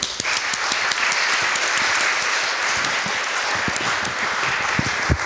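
Audience applauding: dense, steady clapping, with a low thump near the end.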